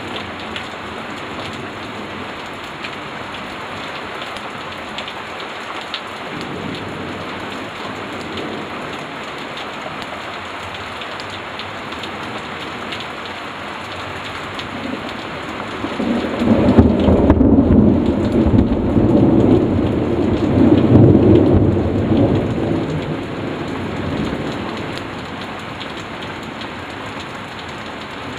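Thunderstorm: steady rain falling throughout, with a long, deep rumble of thunder that builds a little past halfway, stays loud for several seconds and then fades away.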